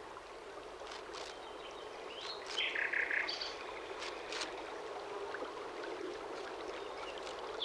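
Streamside ambience: birds chirping over a steady rush of running water, with a short run of bird calls about three seconds in.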